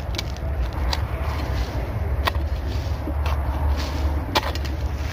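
Four or five sharp knocks spaced irregularly about a second or two apart, over a steady low rumble.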